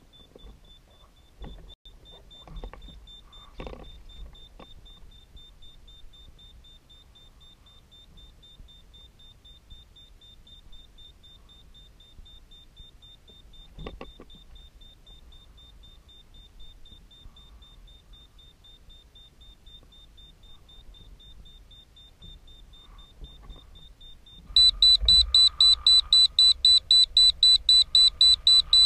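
A faint steady high whine with a few light knocks, then near the end a loud electronic beeper starts up, sounding short high beeps about four times a second.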